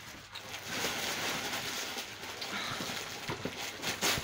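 Rustling of paper and packaging with a few light clicks and knocks, and a louder rustle near the end.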